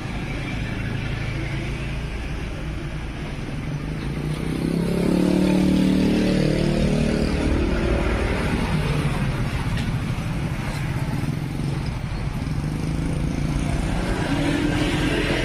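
Motorcycles and other road traffic passing, their small engines rising and falling over a steady low rumble, loudest about five seconds in and again near the end.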